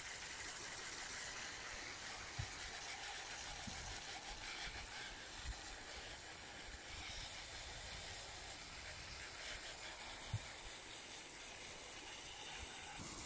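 Steady hiss of water jetting from a hose pushed into a drain pipe and spraying out, with a few soft thumps.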